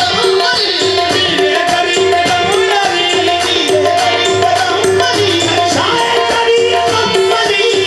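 Qawwali music: harmoniums play the tune in steady held notes over a tabla beat and rhythmic percussion.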